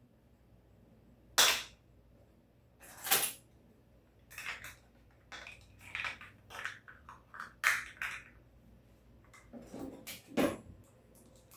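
Dishes and utensils being handled and put away: a few sharp clatters, about a second and a half in, around three seconds in and near the end, with lighter clinks and taps in between.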